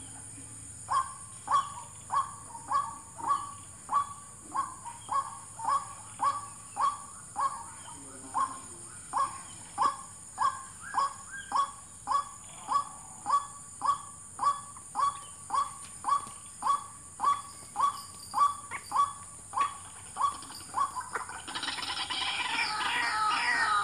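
White-breasted waterhen lure call: a short croaking note near 1 kHz repeated evenly, about one and a half times a second, to draw waterhens to the snares. Near the end a louder, denser jumble of higher calls breaks in over it.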